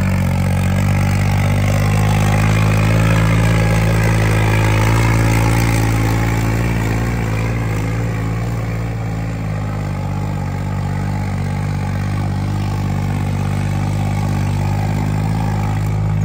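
Modified New Holland 3630 tractor's diesel engine running loud and steady, swelling a little in the first few seconds and then settling.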